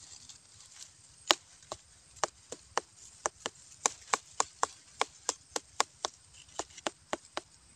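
A finger flicking the rind of a ripe pineapple still on the plant: about twenty quick taps at roughly four a second, starting about a second in. The taps give the 'pok pok' sound that is the sign of black eye (black core) inside the fruit.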